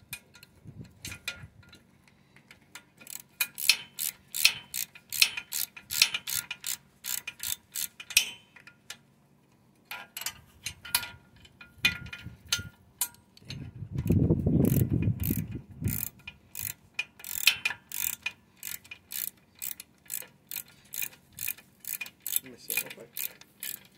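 A ratcheting wrench clicking in quick runs, about three clicks a second, as a bolt on the tractor loader's pivot is turned. The clicking pauses briefly, and a louder low rustling noise lasts about two seconds a little past the middle.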